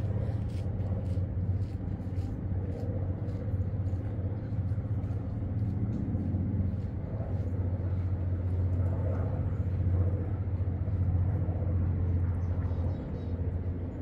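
Distant road traffic: a steady low rumble that swells and eases slightly, with faint scattered clicks in the first few seconds.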